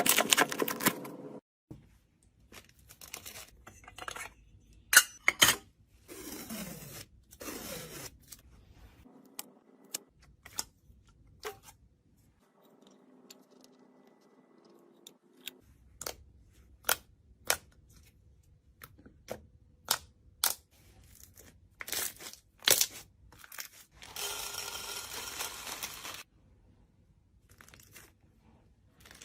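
Slime being squeezed, poked and stretched by hand: a run of sharp, irregular clicks and pops, with a couple of longer crackling stretches.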